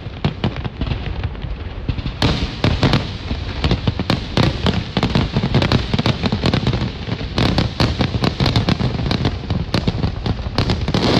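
Aerial fireworks shells bursting in quick succession: a dense, continuous barrage of booms and crackling.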